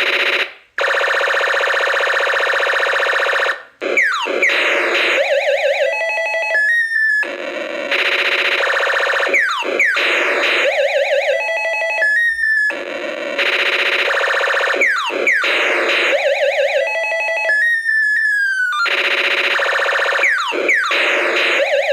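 1980s toy space laser gun's electronic sound effects: a held buzzing tone, then rapid falling zaps, warbling trills and stepped beeps. The pattern repeats about every six seconds.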